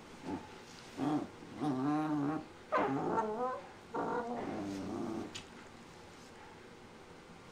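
Shiba Inu puppy vocalising: five wavering, pitched yowl-like calls in the first five seconds, the middle ones longest.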